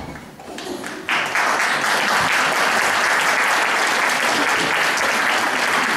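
Audience applauding in a hall, the clapping breaking out suddenly about a second in and then holding steady.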